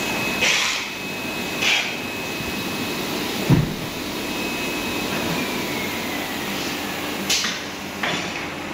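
Vacuum skin packaging machine running steadily, with several short hisses of air and one dull thump about three and a half seconds in.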